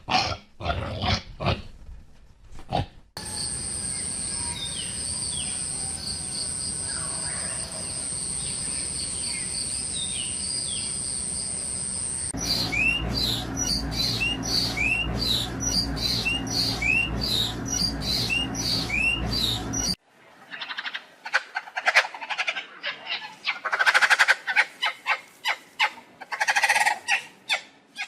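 Birds calling in several clips cut together: a run of short rising chirps repeated about twice a second, then fast, dense chattering calls. Part of the stretch also carries a steady high whine.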